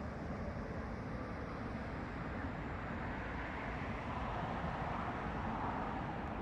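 Steady outdoor background noise: a continuous low rumble with no distinct events, swelling slightly in the last few seconds.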